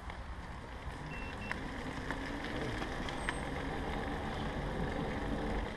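Rolling noise of a faired recumbent cycle setting off on wet tarmac: tyre hiss and drivetrain whir, slowly getting louder as it picks up speed. Two short high beeps a little after a second in.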